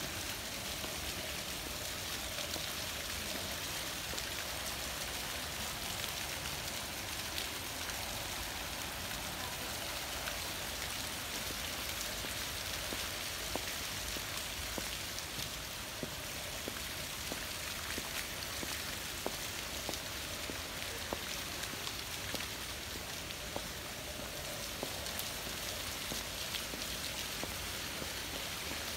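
Outdoor fountain jets splashing into shallow pools: a steady hiss of falling water with many small splashes.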